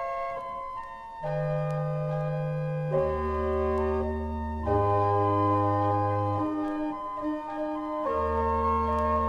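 Late-romantic 1902 Wilhelm Sauer pipe organ playing slow held chords, with deep pedal bass notes coming in about a second in and changing every couple of seconds.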